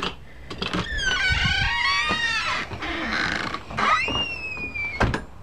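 Distorted, glitchy high-pitched screeching: several wavering squeals sliding up and down together, then a hiss, then a single high whine that rises and falls slowly until a click cuts it off about five seconds in.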